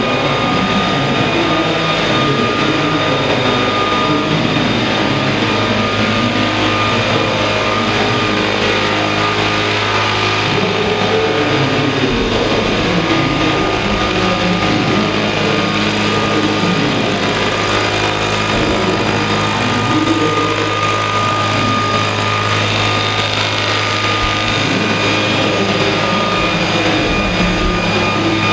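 Large scale RC model Boeing-Vertol CH-47 Chinook's two tandem rotors and drive running steadily in flight, a continuous rotor hum with a steady high-pitched whine on top.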